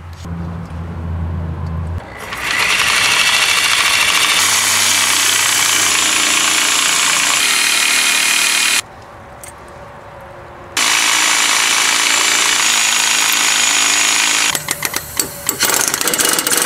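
Power impact wrench hammering on the rust-seized 17 mm nut of a rear lateral link's eccentric cam bolt. It runs in two long goes with a short pause between, then a series of short stop-start bursts near the end as the nut is worked loose.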